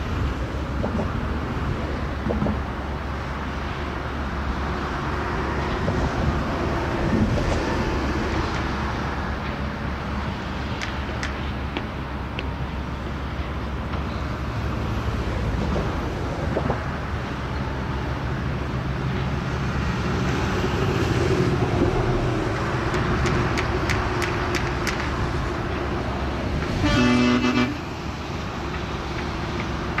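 Outdoor construction-site ambience: a steady rumble of heavy machinery and road traffic with occasional short knocks. A vehicle horn sounds once, briefly, near the end.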